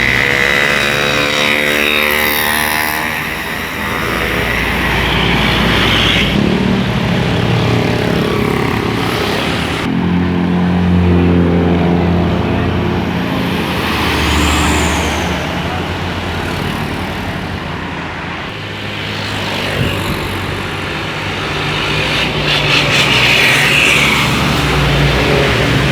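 Buses and other road traffic passing close by, engines running and tyres on the road, swelling in loudness several times as vehicles go past. A sliding set of tones sweeps through in the first few seconds.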